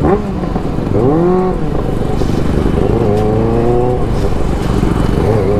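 Superbike engine revving while riding slowly: a quick throttle blip about a second in, then a longer climb in revs around three seconds in, over a steady low engine rumble.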